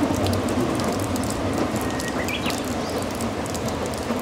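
Steady hiss and patter of rain, with the running noise of a narrow-gauge Kurobe Gorge Railway works train slowly fading as it pulls away into a tunnel. A short high rising chirp comes about halfway through.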